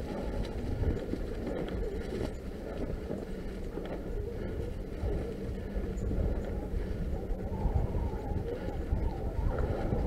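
Norco Fluid FS3 full-suspension mountain bike riding over a leaf-covered dirt trail: a steady low rumble of tyres and wind noise, with a few light rattles.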